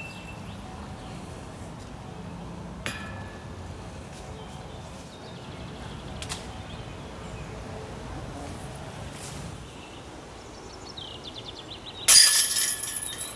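A disc golf disc hits the hanging steel chains of a chain basket near the end: a sudden loud metallic crash and jangle that rings on for about a second. Two faint sharp knocks come earlier, about three and six seconds in.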